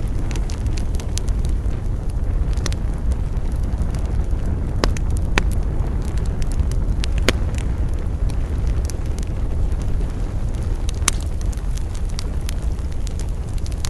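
Campfire burning: wood crackling and popping irregularly over a steady low rumble, with a few louder sharp snaps in the middle and near the end.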